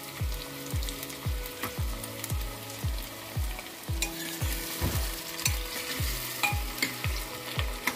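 Sliced onions and whole spices sizzling in hot mustard oil on a high flame, stirred with a steel ladle that scrapes and clinks against the pot, most between about four and six seconds in. Under it runs a steady low beat about twice a second.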